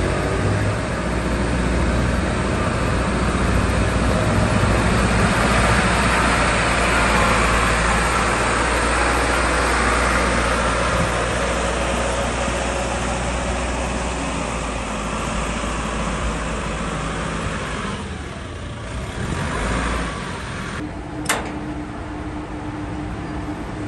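Lugong LG940 wheel loader's diesel engine running as the machine is driven, loudest a few seconds in and settling lower about three quarters of the way through. A single sharp click near the end, then a steady hum.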